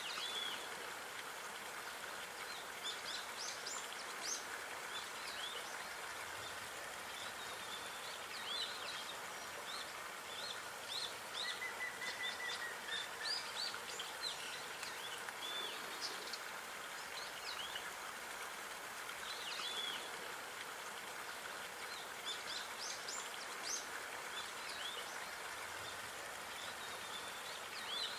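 Small birds chirping and calling again and again, short high notes scattered throughout over a steady background hiss, with one brief trill near the middle.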